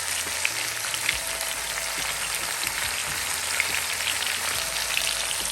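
Chicken pieces and chopped seasoning sizzling in hot oil in a Dutch pot: a steady hiss with scattered sharp crackles and pops.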